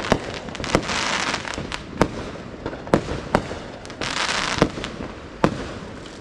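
Fireworks going off: sharp bangs every half second to second, with two stretches of crackling hiss between them.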